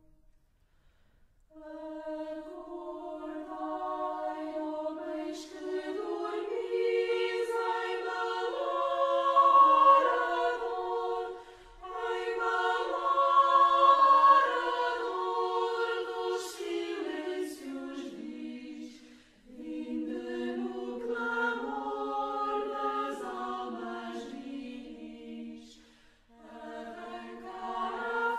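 Music track of a choir singing slow, sustained notes without instruments, in long phrases with short breaks between them.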